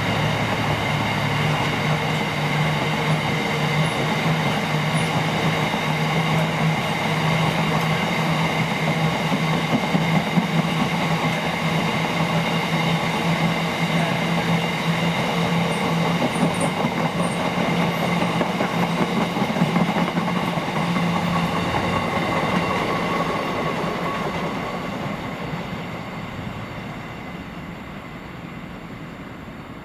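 A diesel train running steadily for most of the stretch, its engine note holding level, then fading away over the last several seconds as it moves off.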